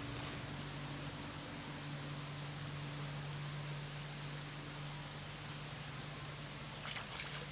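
Insects chirring steadily in an even, high-pitched tone over a low hiss, with a few faint rustles near the end.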